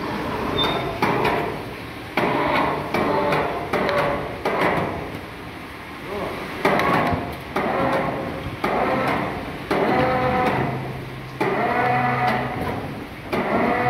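Repeated hammer strikes in a stone workshop, roughly one a second, each followed by a short ringing tone. From about ten seconds in, a low steady hum joins them as the slung stone block is hoisted off the truck.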